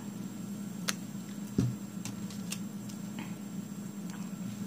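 Scattered light clicks and taps of nail-stamping tools, the polish brush, bottle and scraper, against a stamping plate, over a steady low hum. One duller knock comes about a second and a half in.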